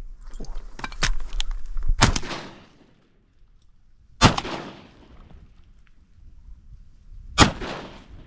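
Shotgun firing three shots, at about two, four and seven seconds in, each with a short echoing tail.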